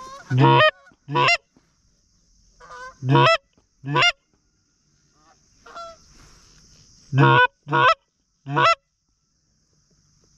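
Goose honks: seven loud, short calls, each rising in pitch, in three groups, with fainter honks between them.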